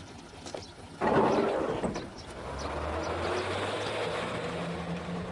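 Sound effect of a city bus setting off: a sudden burst of noise about a second in, then the engine running with a low hum that rises a little in pitch as the bus pulls away.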